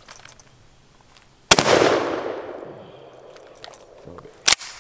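A single shotgun shot from an Adler shotgun about one and a half seconds in, its echo dying away over a second or more. A short sharp click follows near the end.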